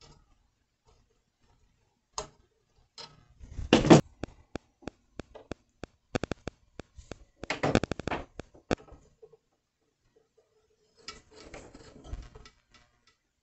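Hand-tool clicks and cuts on an electrical extension cord being cut to length. Two louder, longer crunching cuts come about four and eight seconds in, with a run of sharp clicks, three or four a second, between and after them, and a softer scuffling near the end.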